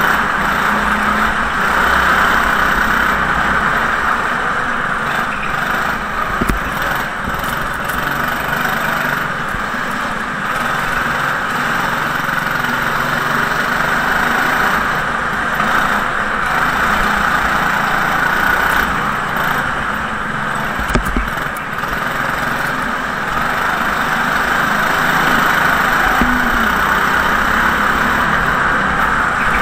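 Go-kart engine running continuously as the kart laps, heard from on board, its level swelling and easing a little through the corners. Two brief knocks stand out, about six and a half seconds in and again around twenty-one seconds.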